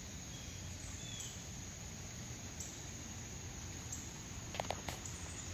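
Light rain on a wet flagstone patio: a steady soft hiss with a thin, constant high tone over it, and a few sharp ticks close together near the end.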